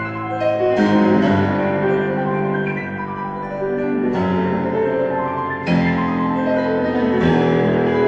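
Background piano music: slow, sustained chords, with a new chord struck every couple of seconds.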